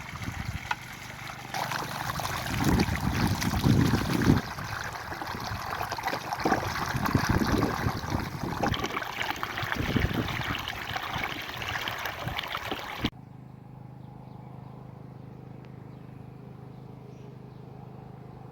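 Running water trickling, with irregular low rumbles through it. About thirteen seconds in it cuts off suddenly to a quieter, steady low hum.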